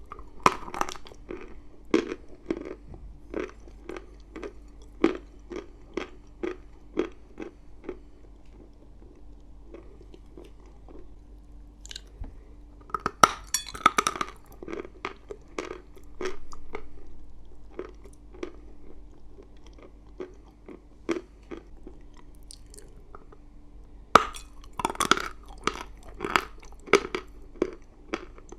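Chalk being bitten and chewed close to the microphone: sharp, crisp crunches about twice a second, with bursts of louder bites near the start, about halfway through and near the end, over a faint steady hum.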